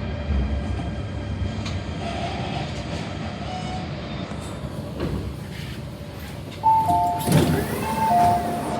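MTR K-Train electric multiple unit rolling and slowing into a station with a steady, easing rumble. About two-thirds of the way through, a two-tone door chime sounds, alternating high and low and repeating. It comes with a louder rush of the sliding doors opening.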